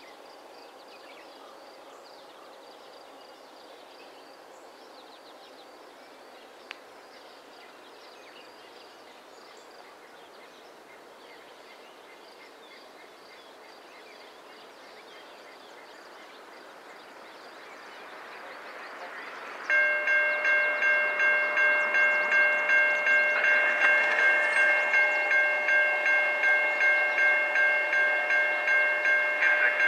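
Approaching diesel locomotive's air horn sounding a long steady chord of several notes, starting suddenly about two-thirds of the way in, over a rising rumble of the oncoming train. Before that, only faint background noise.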